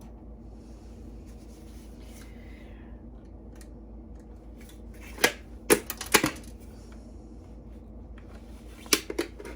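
Hand tools and metal computer parts clicking and clacking as a brass part is worked loose from an old desktop computer: a quick cluster of sharp clicks about halfway through and a few more near the end, over a steady low hum.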